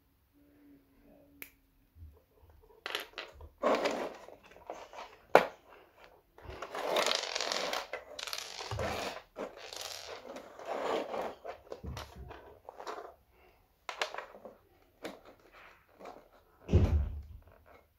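Plastic Playmobil fence sections being handled, snapped together and set down on a floor: irregular clicks, rattles and scraping, with a sharp click about five seconds in and a dull thump near the end.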